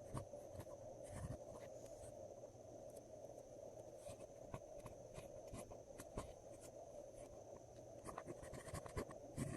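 Glossy slime being worked by hand, giving irregular small clicks and pops over a steady background hiss.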